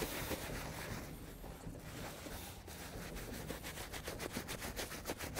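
Leather cleaning brush scrubbing back and forth over cowhide leather wet with leather cleaner: a quick, repeated bristle scratching.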